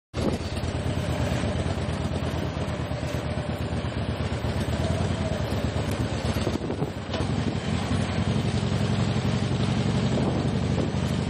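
Harley-Davidson V-twin motorcycle engine running as the bike rides along a street, with a low, pulsing exhaust note. After a brief dip about seven seconds in it comes back louder and deeper.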